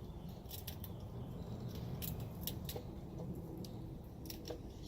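Scattered light clicks and ticks from handling PVC pipe parts, over a low steady hum.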